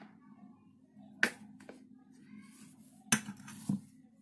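A few sharp clicks and taps from handling a plastic flip-top bottle of aloe vera gel and a steel spoon, the loudest about a second in and again near three and three-and-a-half seconds in, over a faint low hum.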